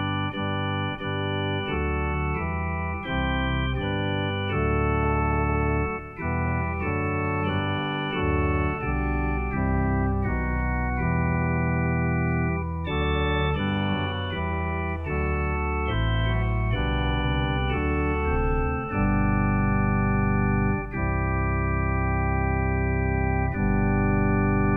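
Organ music played as an offertory: slow sustained chords that change every second or two, with longer held chords near the end.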